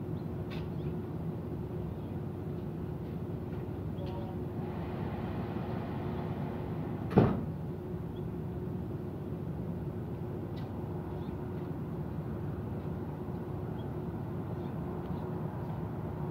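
Steady machine-like room hum with a faint held tone, broken by a single sharp bang, like something knocking shut, about seven seconds in.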